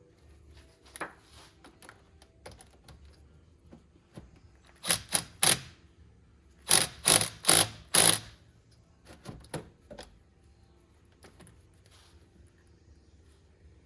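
Ratcheting clicks in short strokes, each a quick rattle: three strokes about five seconds in, then four more about seven to eight seconds in, with light taps and clicks from hand work in between.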